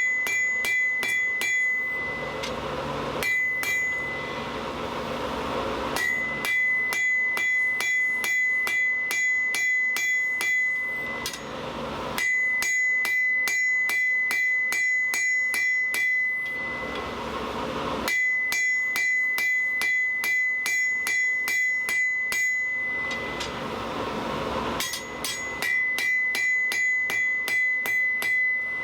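Hand hammer striking hot 1/2 inch square mild steel on an anvil, about three blows a second in runs of several seconds, with short pauses between runs. The anvil rings with a steady high tone under each run.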